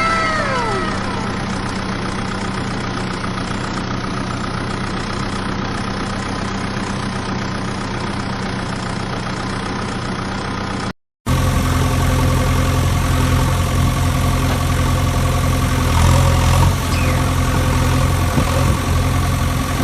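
Vehicle engine running steadily at idle. About eleven seconds in the sound drops out for a moment, then an engine runs on louder and deeper.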